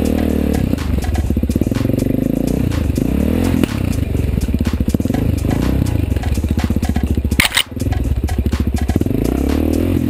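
Suzuki DR-Z400SM's single-cylinder four-stroke engine running at low revs on a rocky trail, its pitch rising and falling with the throttle. There is one sharp knock about seven and a half seconds in, followed by a brief dip in the engine sound.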